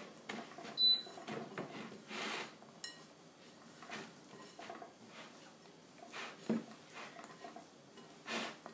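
Hands mixing cookie dough in a glass bowl: soft rubbing with scattered knocks and clinks against the glass, the sharpest clink, with a short ring, about a second in.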